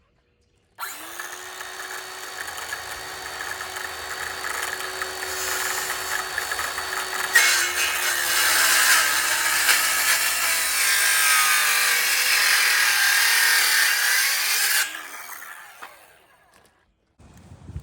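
Electric power saw cutting into a wooden post. Its motor hum sags in pitch as the cut loads it, then stops and winds down near the end.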